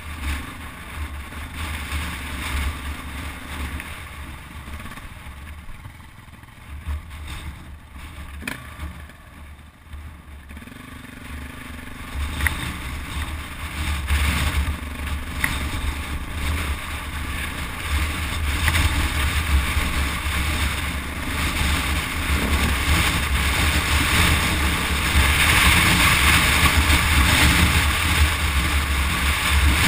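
KTM 400 EXC single-cylinder four-stroke trail bike running while being ridden along a rutted dirt track, with low rumble on the microphone. It is quieter for several seconds, then grows steadily louder through the second half.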